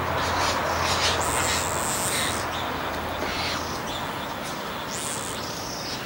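Birds calling in a garden: a series of short, high chirps and calls, with one held high note early on, over a steady hiss.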